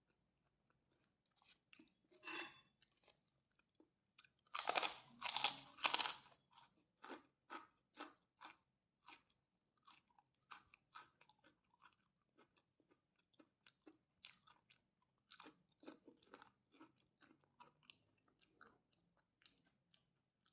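A person eating nasi goreng close to the microphone: chewing and crunching in short repeated bites, loudest in a cluster about five seconds in, then steady at about two bites a second.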